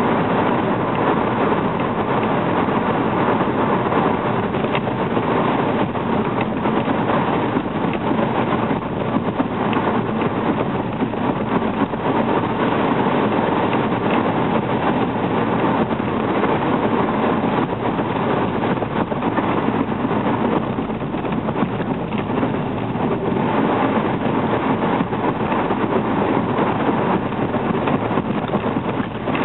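Steady road and engine noise inside the cabin of a 2010 Hyundai Accent GS cruising: an even rush of tyre and wind noise over the hum of its 1.6-litre four-cylinder, with no sudden sounds.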